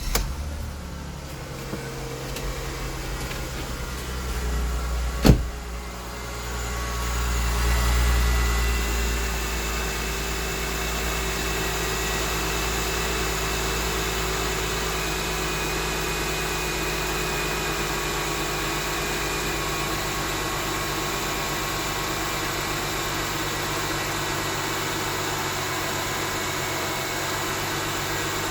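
Mercedes-Benz E350 W212's M272 V6 engine idling just after start-up, with a ticking knock whose source the owner is trying to locate. A single sharp click comes about five seconds in, the idle swells briefly a few seconds later, then settles into a steady idle.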